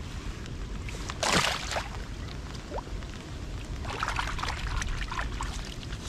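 Water splashing and sloshing around a float tube on open water. There is one louder splash about a second in and a cluster of smaller splashes around four seconds in.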